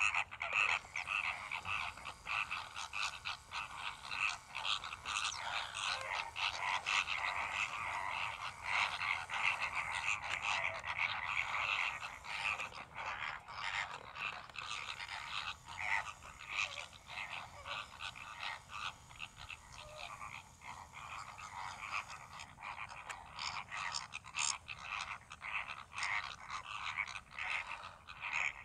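A flock of greater flamingos calling: a dense, continuous chatter of many short, overlapping calls that never stops.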